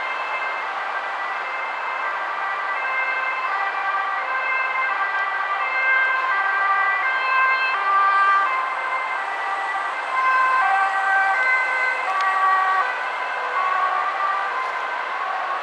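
Ambulance two-tone siren alternating between a high and a low pitch, growing louder in the middle as it approaches, over the steady noise of motorway traffic.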